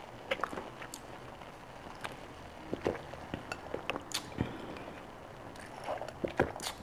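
Quiet eating sounds: scattered small clicks, ticks and light clinks of dishware while someone chews.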